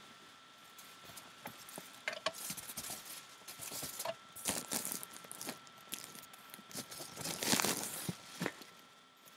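Handling noise as the camera is moved and repositioned: scattered rustles, rubs, clicks and small knocks, busiest in the second half, with the loudest rustle near the end.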